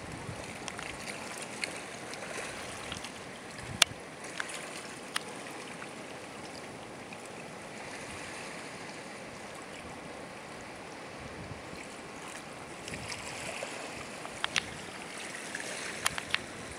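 Water lapping at a pebble shore, a steady wash, with a few sharp clicks now and then.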